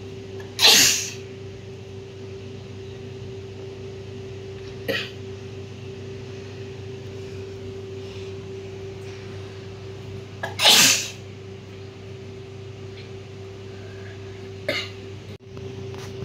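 A woman sneezing hard twice, about ten seconds apart, with two shorter, quieter sneeze-like sounds between, over a steady background hum.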